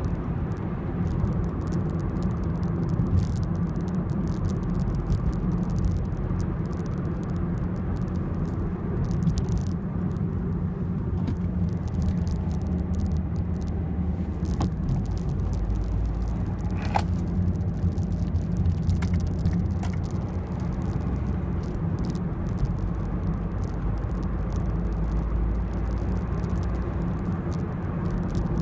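Peugeot 206 1.4 HDi eight-valve common-rail turbo diesel heard from inside the cabin while driving: a steady low engine drone and tyre rumble.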